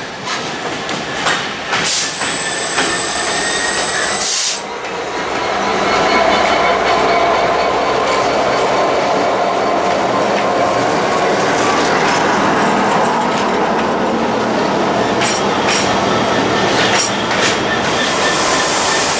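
Freight train hauled by a Class 66 diesel locomotive passing close by, its wagon wheels clattering over the rail joints. A high-pitched squeal sounds for about two seconds a couple of seconds in, then a steady rumble and clatter follows.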